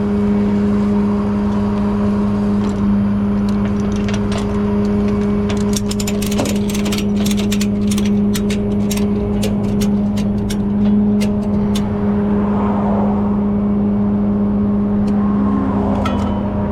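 Flatbed tow truck's engine running with a steady drone while traffic passes. From about six to twelve seconds in comes a run of sharp clicks: ratchet straps being tightened to tie the car down.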